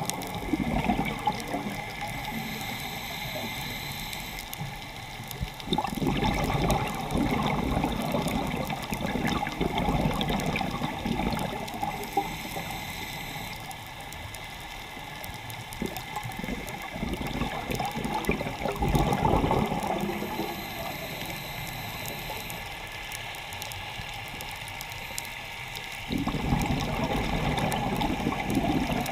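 Underwater scuba breathing during a dive: bursts of bubbles from the diver's regulator exhaust, each lasting a few seconds and coming several seconds apart, with a steady watery hiss between them.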